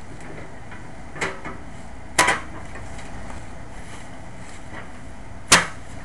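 Three sharp knocks, a lighter one and then two loud ones, the second with a brief ring after it, over a steady background hiss.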